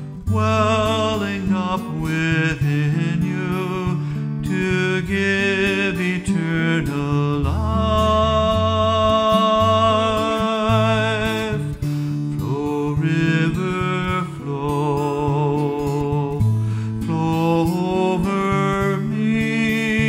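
A man singing a slow song while playing an acoustic guitar, holding one long note about halfway through.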